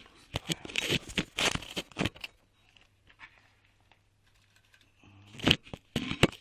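Crackling, clicking handling noises for about two seconds, then a quiet stretch with a faint low hum, then more clicks and knocks near the end.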